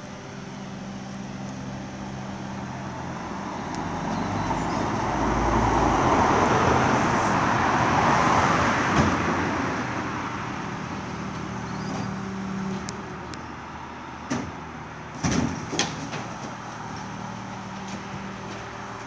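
Geesink Norba rear-loader bin lorry's diesel engine running with a steady hum down the street. In the middle a passing vehicle swells up and fades away, and a few sharp clanks follow near the end as bins are handled at the back of the lorry.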